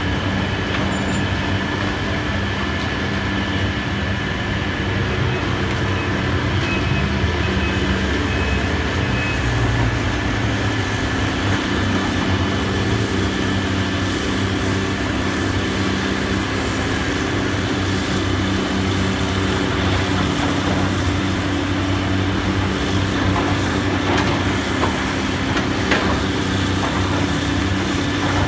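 Heavy diesel demolition machinery running steadily, a low engine drone under a constant clatter, with one sharp knock near the end.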